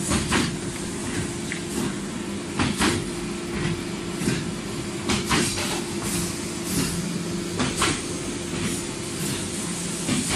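Woodworking factory machinery running with a steady hum, with irregular knocks and clatter every second or so.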